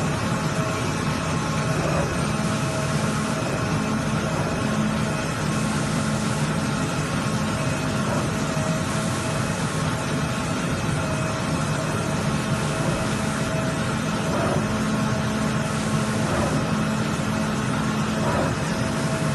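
CNC flatbed cutting machine running while its cutting head travels along the gantry: a steady machine hum and whir with a few constant tones and no breaks.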